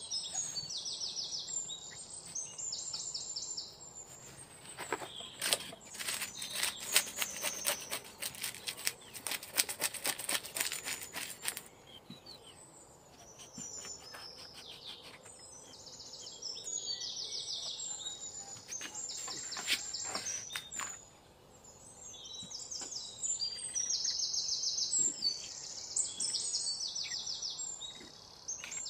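A knife scraping scales off a fish on a wooden board, a run of quick rasping clicks and scrapes from about five to twelve seconds in. Throughout, a bird calls over and over in short, high trills.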